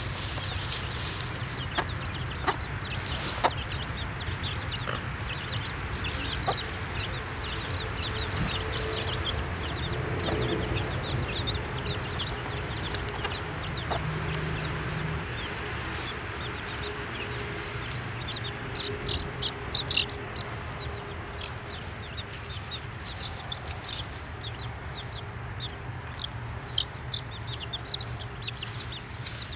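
Baby chicks peeping: many short, high peeps, thickest in the second half, over a steady low background rumble.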